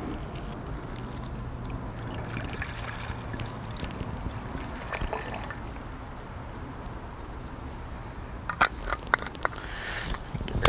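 Tap water pouring from a plastic bottle into an aluminium cooking pot, a faint trickle and slosh. A few sharp clicks come near the end.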